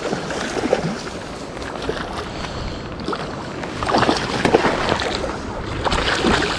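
Running creek water with wind on the microphone, a steady rushing noise that swells louder twice, about four and six seconds in.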